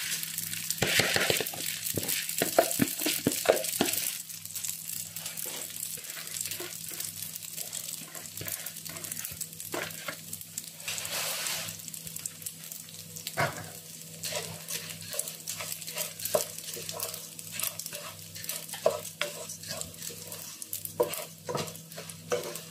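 Washed raw rice frying in hot vegetable oil, sizzling and crackling as it is stirred and scraped around the pan with a wooden spatula. Loudest in the first few seconds as the wet grains go in, then a steadier sizzle with scrapes and clicks from the spatula.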